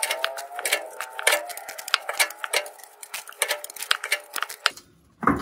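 Ratcheting wrench clicking in quick, uneven runs as it turns a rusty exhaust flange bolt loose. Near the end comes a short pause, then one louder sharp metal knock.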